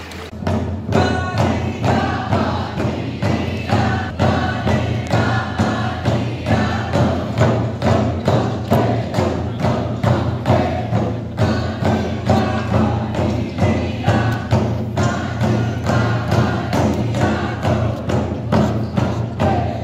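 Ahtna Athabascan dance song: large hide frame drums struck in a steady, even beat under a group of voices singing in unison. The drumming and singing start suddenly at the outset and hold the same beat throughout.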